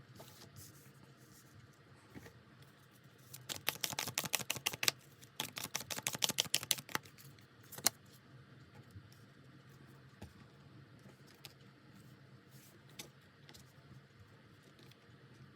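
A deck of tarot cards being shuffled: two runs of rapid card clicks, each about a second and a half, a few seconds in, then a sharper single snap and a few light taps as cards are handled.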